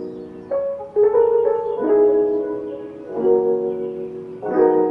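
Soft piano-led instrumental background music, a new chord struck every second or so.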